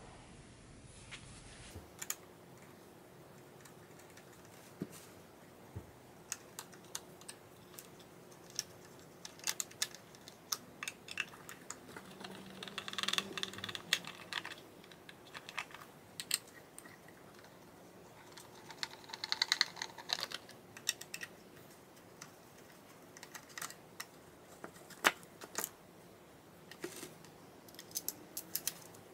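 Hand screwdriver removing the screws from a Denon MC 6000 DJ controller's metal end panel: scattered light clicks and taps, with two quicker runs of clicking, a little before halfway and about two thirds through.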